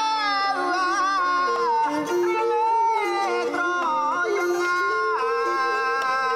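Khmer traditional ensemble music: a wavering melody that slides between notes, over a lower line of stepped notes.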